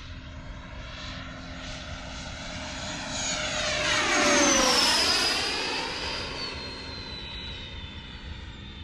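Radio-controlled foam L-39 jet's 110 mm electric ducted fan, driven by a Hacker 780kv motor, whining as the model makes a pass. It grows louder to a peak about halfway through, and its pitch drops as it goes by, then fades.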